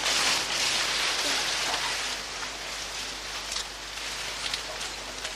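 Leafy green plant stalks rustling and swishing as they are yanked up and swung about. The rustling is loudest in the first two seconds, with a few light clicks later.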